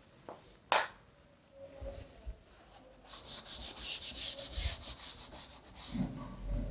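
Cloth wiping chalk off a blackboard in quick, rhythmic back-and-forth strokes, starting about three seconds in. A single sharp tap comes just under a second in.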